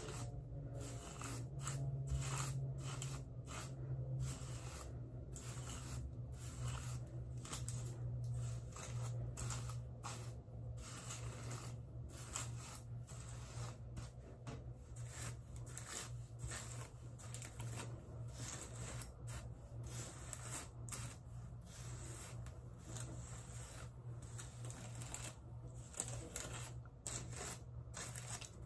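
Paddle hairbrush pulled through long hair: repeated, irregular scratchy brushing strokes, over a steady low hum.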